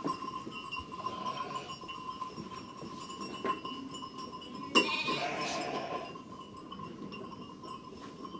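Sheep bleating in their pen, with one loud, drawn-out bleat about five seconds in.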